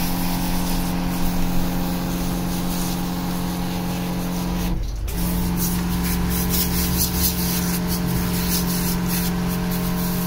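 Motorised dog-wash pump running steadily with water hissing from a trigger spray nozzle on a coiled hose, a constant hum under the spray; it cuts out for a moment about five seconds in.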